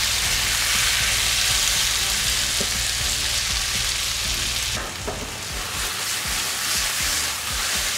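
Beef fajita strips with sliced onions and bell peppers sizzling in hot oil in a nonstick skillet as they are stirred with a silicone spatula: a dense, steady frying hiss. About five seconds in the sizzle drops a little and a few light knocks of the spatula against the pan come through.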